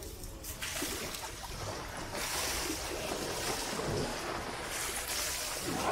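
Water sloshing and splashing as a bathing elephant moves in its pool, with wind on the microphone. It swells a little about two seconds in and again near the end.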